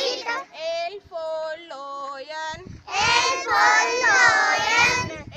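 A single voice chants a line in a sing-song tune, then a group of young children chant it back loudly in unison: a call-and-response recitation.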